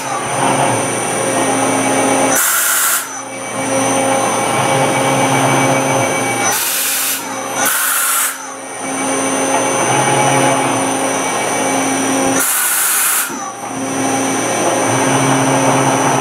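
Doosan MX2500 LST multi-axis CNC lathe running: a steady motor hum and whine that shifts in pitch in a repeating cycle, with a short hiss every few seconds.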